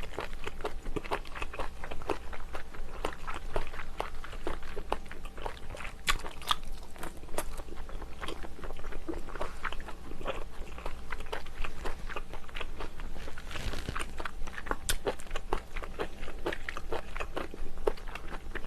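A person chewing and eating close to the microphone: dense, irregular wet mouth clicks and smacks from chewing monkfish meat from a seafood stew.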